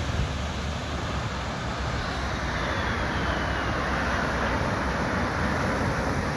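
Jet aircraft flying past, its engine noise a rushing roar that swells from about two seconds in, with a faint falling whine.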